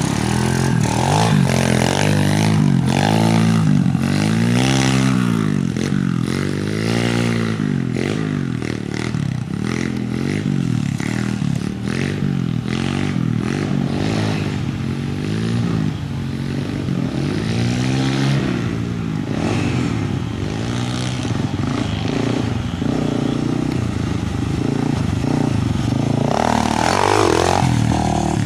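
Small pit bike engine revving up and falling back over and over as the bike is ridden, each rise and fall lasting a second or two.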